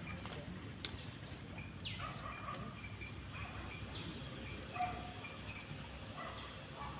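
Wild birds calling outdoors: short rising whistled notes repeated several times, with scattered chirps, over a steady low background rumble. A sharp click sounds just under a second in.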